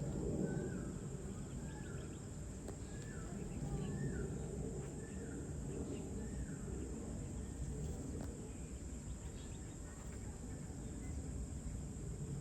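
A bird calls repeatedly with short, slurred whistled notes, about one a second, stopping about halfway through. Under it run a steady high-pitched insect drone and a low background rumble.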